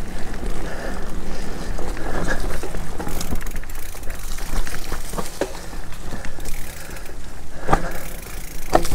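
Mountain bike rolling along a dirt singletrack trail: a steady rumble of tyres and ride noise, with scattered clicks and rattles from the bike over bumps.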